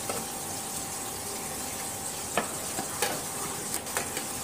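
Hot oil sizzling steadily in an aluminium pot around freshly added Kashmiri red chili powder and whole spices, with a few light clicks in the second half.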